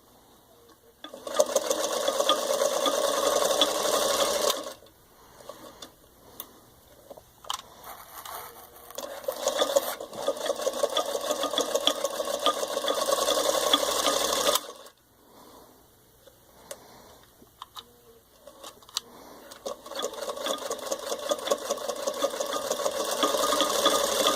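Singer 221-1 Featherweight sewing machine (1939) stitching through four layers of denim, its motor running the needle in three runs. The first is short, about a second in. The next two are longer and build up speed gradually. Between runs there are pauses with a few light clicks.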